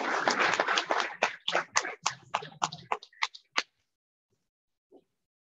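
Audience applauding, dense at first, then thinning to a few scattered claps that stop about three and a half seconds in.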